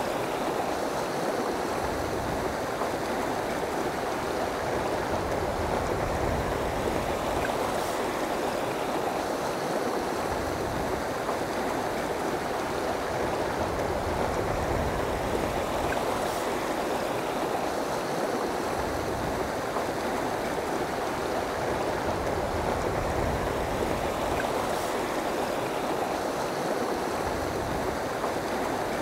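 Steady rush of a river running over rocks and riffles, an even unbroken water noise.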